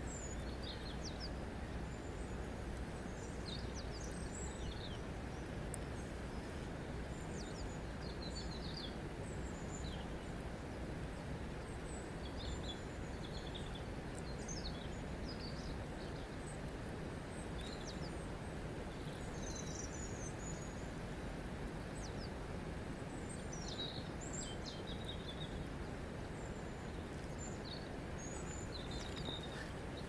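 River water flowing steadily over a stony shore, with small birds giving short, high chirps now and then.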